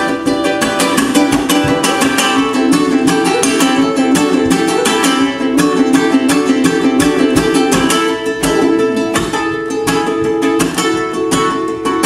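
Solo ukulele played with rapid, driving strumming, the chords ringing continuously.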